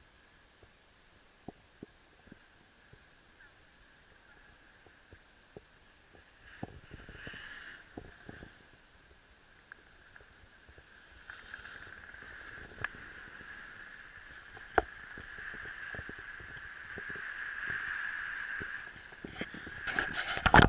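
Snowboard sliding over packed, tracked piste snow: a hiss that starts faintly and grows louder from about halfway in as the board picks up speed, with scattered sharp knocks of the camera housing. Near the end fingers handle the camera, giving a burst of loud taps.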